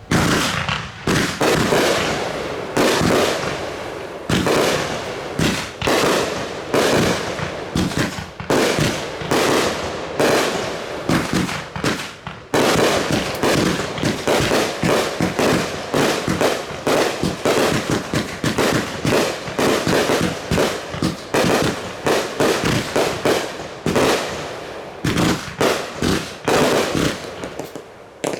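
Fireworks going off in a rapid, continuous barrage of many bangs and crackles a second. It starts suddenly and comes back loud with a new volley about halfway through.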